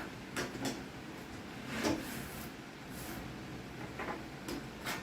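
Stainless steel caulk removal tool scraping and pulling out old caulk in a string of short, irregular scrapes, the loudest about two seconds in.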